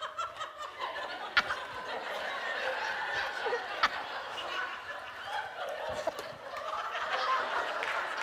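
Studio audience laughing steadily, with a few sharp clicks here and there.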